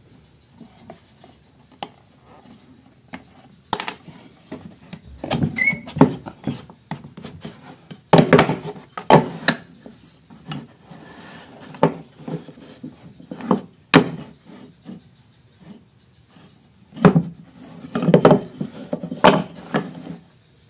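Cut hardwood joint pieces handled on a wooden tabletop: wood-on-wood knocks and clacks with some scraping and sliding, coming in several clusters of quick strikes.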